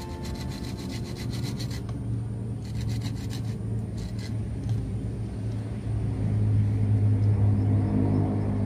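Hand saw cutting through a branch of a loa (cluster fig) tree, in a run of regular strokes during the first half. A steady low rumble underneath grows louder near the end.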